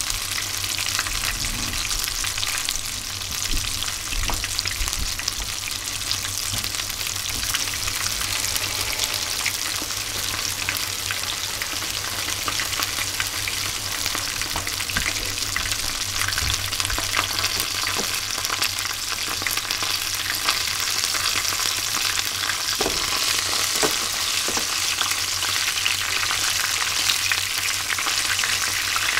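Whole chika (Japanese surf smelt) deep-frying bare in hot oil: a steady, dense crackle and sizzle of bubbling oil, with a couple of light knocks about three quarters of the way through.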